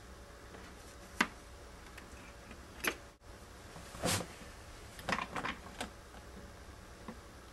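Scattered light clicks and knocks of small objects being handled on a work surface, with the loudest, fuller knock about four seconds in and a quick cluster of clicks just after.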